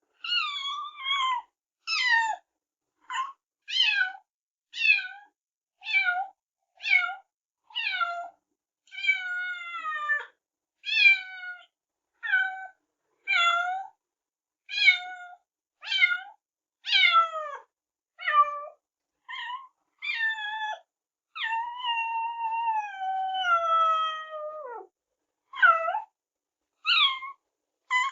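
A cat meowing over and over, about one short meow a second, each falling in pitch. Near the end comes one long, drawn-out meow that slides down in pitch.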